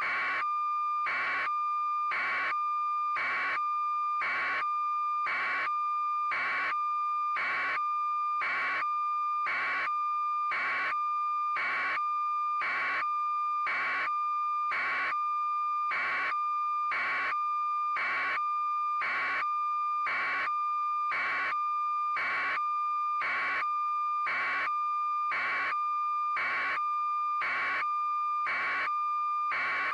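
Electronic beeping: a steady high tone held throughout, with a beep pulsing evenly about once a second.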